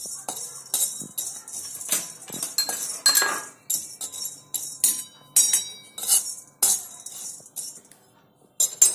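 Metal spatula scraping and stirring whole cloves around a dry iron kadhai, dry-roasting them: a rattling scrape about twice a second, ending in a sharp clink near the end.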